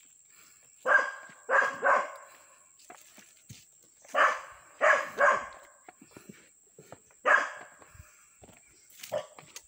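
A dog barking: two quick sets of three barks, then a single bark, with a fainter bark near the end. It is barking in alarm at a scarecrow that it takes for a person.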